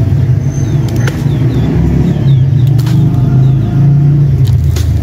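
A loud, steady low rumble with a pitched hum, and a few short knocks or splashes as sand-cement chunks are dropped into a bucket of water, about one every two seconds.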